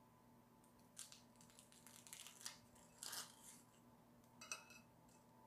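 A thin, crisp tuile fortune cookie being broken open by hand: several faint brittle cracks and crackles, about a second apart.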